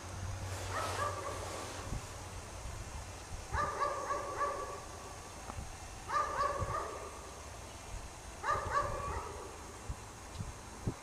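Dog barking in four short runs of barks, about one run every two and a half seconds.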